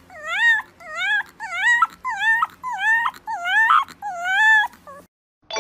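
A young animal crying over and over, about two high-pitched cries a second, each dipping then rising in pitch; the crying stops abruptly near the end.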